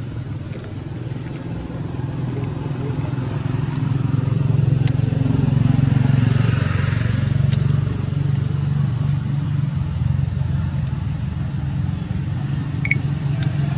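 Motor vehicle engine running steadily, growing louder toward the middle and then easing off as it passes.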